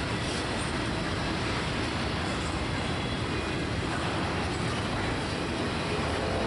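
Freight train rolling past, mostly double-stack container well cars: a steady noise of steel wheels running on the rails, with no break or single loud event.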